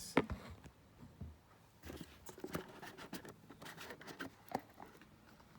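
A lighter's gift box being opened and its packaging handled: scattered sharp clicks, the loudest just after the start, with light scraping and rustling between them.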